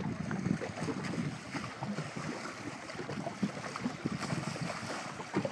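Wind buffeting the microphone in irregular gusts over choppy water splashing and lapping, with no engine or voices.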